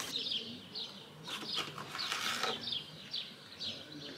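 A small bird calling over and over, short high chirps that each fall in pitch, about two or three a second. A brief patch of crisp rustling comes about halfway through.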